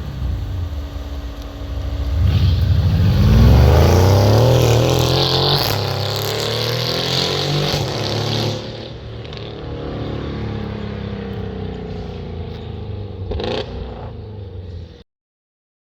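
Modified Mercedes CLS63 S AMG twin-turbo V8 with upgraded turbos and a full aftermarket exhaust, accelerating hard from about two seconds in, its pitch rising. About nine seconds in it falls back to a lower, quieter run, with a short sharp noise near the end, and the sound cuts off suddenly.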